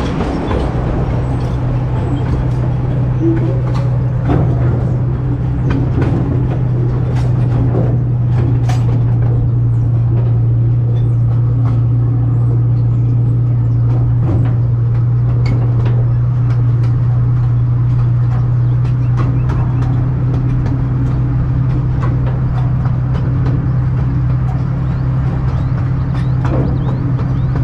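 Miniature park train running steadily: a constant low engine drone with scattered sharp clicks and knocks from the cars rolling over the track.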